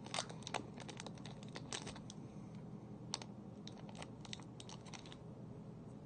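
Person chewing a soft Chewy chocolate-chip-and-marshmallow granola bar close to the microphone, with irregular small clicks and crackles from the mouth and the foil wrapper in his hands, over a low steady hum.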